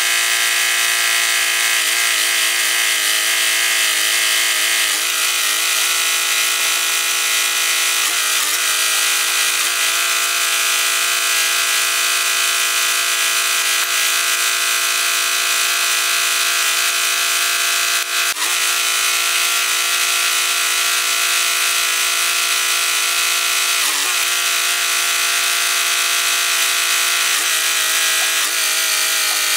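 Loader tractor's diesel engine running steadily at idle, its pitch wavering briefly a few times. A single sharp knock about eighteen seconds in.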